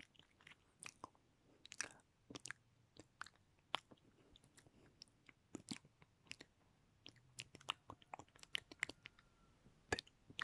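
Close-miked wet mouth sounds: irregular lip smacks and tongue clicks, a few each second, some in quick clusters.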